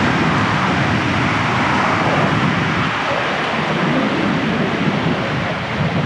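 Sea surf and wind at the shore: a loud, steady rush of noise with no pitch to it.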